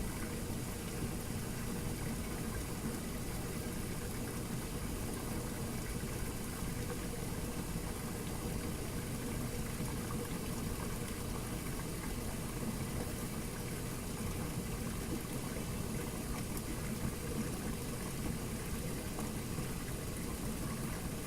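Washing machine running with a steady, low-pitched sound that does not change.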